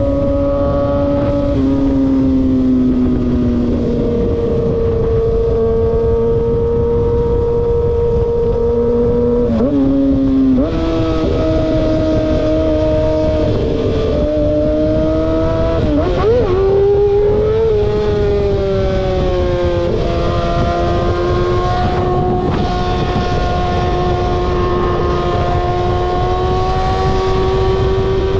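Car engines running, with a steady engine note that holds its pitch for a few seconds at a time and then steps up or down. About halfway through the note briefly wavers up and down in a quick rev.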